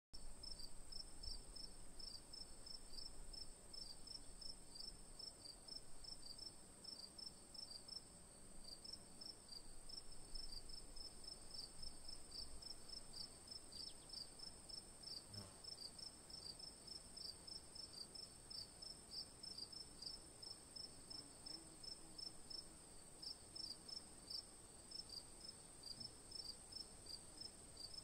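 Faint insect chorus: a steady high trill with a quick, repeating chirp over it.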